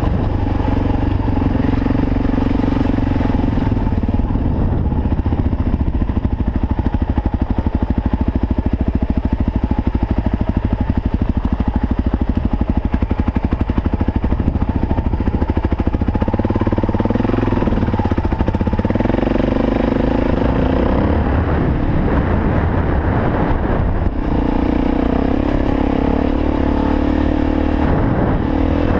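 Suzuki DR-Z400 dual-sport motorcycle's single-cylinder four-stroke engine running while ridden along a dirt trail, picked up by a helmet-mounted camera. Its pitch rises and falls with the throttle several times in the second half.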